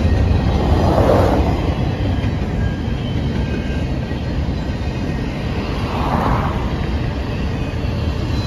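Double-stack intermodal freight cars rolling past: a steady, low rumble of steel wheels on rail, swelling louder twice, about a second in and again about six seconds in.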